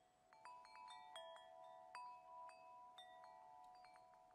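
Faint chime tones, struck one after another at several different pitches, each left ringing on.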